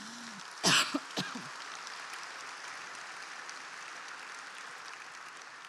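A large audience applauding, an even patter of many hands that slowly fades toward the end. There is one short, louder sound about a second in.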